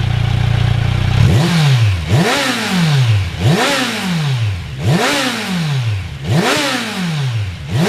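Kawasaki Versys 1000's inline-four engine, exhausting through a Holeshot Comp 2 14-inch slip-on muffler, idling and then, about a second in, blipped to high revs about six times in a row. Each rev rises sharply and falls back to idle.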